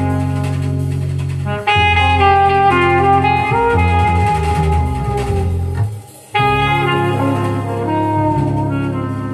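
Recorded music played through a hi-fi system of GT Audio Works GTA3r speakers with Sound Insight SI600 open-baffle subwoofers, with a heavy bass line. The music drops away for a moment about six seconds in, then comes back in full.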